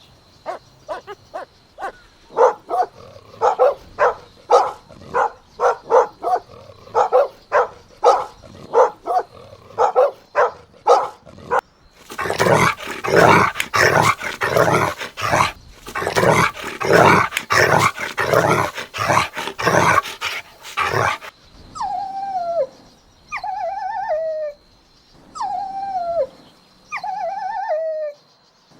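Puppies yapping in quick short barks, two or three a second, breaking into a denser, louder stretch of barking about halfway through. Near the end come about five drawn-out whines, each falling in pitch.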